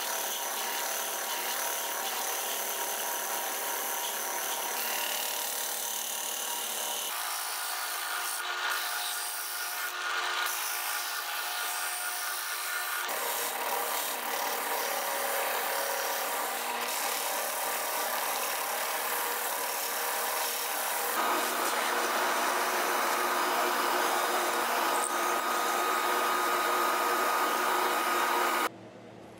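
Drill press spinning a sanding drum while the edge of a laminated plywood workpiece is pressed and rubbed against it. The steady whir changes abruptly several times and is louder in the last part, then cuts off just before the end.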